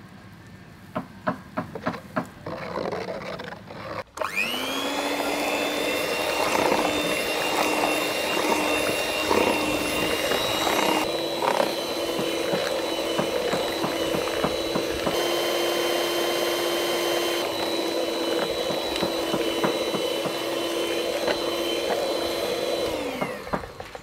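A few light taps, then a handheld electric mixer starts about four seconds in with a quick rising whine and runs steadily, beating cake batter in a metal bowl. Its pitch steps up a little partway through, and it winds down with a falling whine near the end.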